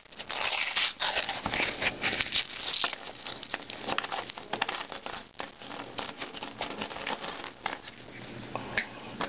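Paper coin-roll wrapper being torn and crinkled open, with nickels spilling out and clinking onto a tabletop in a run of sharp clicks.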